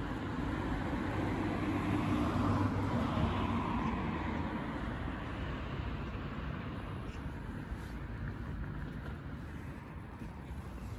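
A car passing by: tyre and engine noise swells to a peak about two to three seconds in, then slowly fades away.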